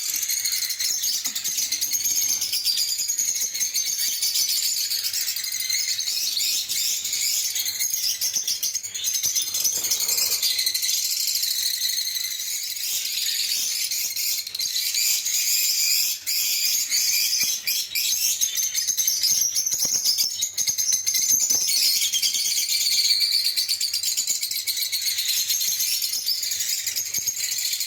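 Lovebirds chirping and chattering, a dense, unbroken high-pitched twitter from several birds at once.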